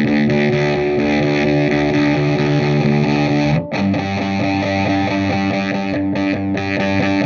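Electric guitar played through a Ratt Deluxe v4 distortion pedal: a heavily distorted chord rings out, cuts off briefly about three and a half seconds in, and a new distorted chord is struck and held.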